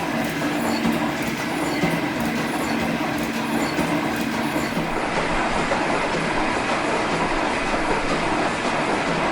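G&E metal shaper running, its ram stroking back and forth with a regular rhythm as the tool takes a light finishing pass across an aluminum bar.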